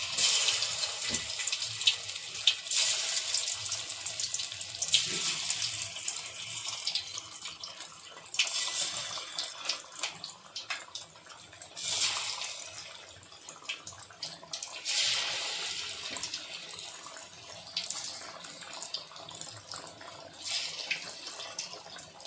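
Marinated chicken pieces deep-frying in hot oil in a kadai: a hissing sizzle that flares up about six times as more pieces go in, then settles between flares, with a few sharp pops.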